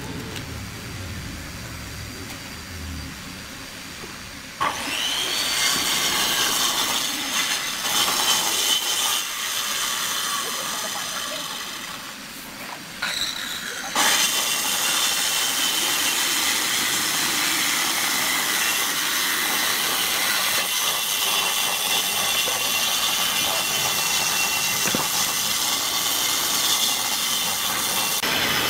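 Handheld electric power saw cutting wood. It comes in suddenly about five seconds in, eases off briefly around twelve to fourteen seconds, then runs steadily.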